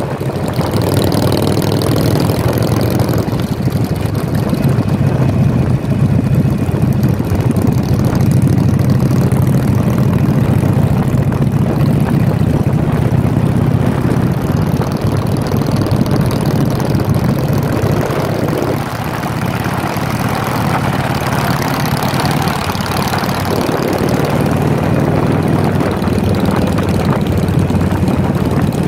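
Harley-Davidson Sportster V-twin motorcycle engines running steadily under way, loud and close from the rider's own bike.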